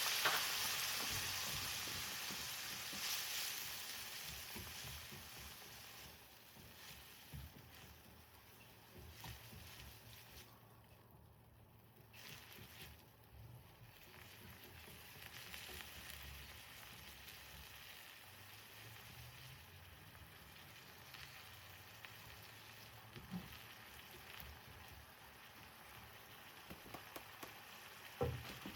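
Food sizzling in a frying pan, loud at first and dying down over the first several seconds to a faint, steady sizzle.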